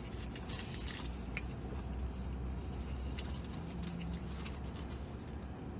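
Paper sandwich wrapper crinkling and rustling in the hands, in short scattered crackles that are thickest in the first second and a half, with chewing, over a low steady hum in a vehicle cabin.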